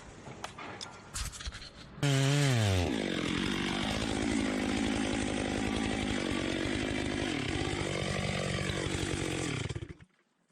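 Two-stroke chainsaw cutting: it comes in suddenly and loud about two seconds in, its engine pitch falling quickly as the chain bites into the wood, then runs under load with a wavering pitch before cutting off abruptly near the end. Faint clicks and knocks come before it.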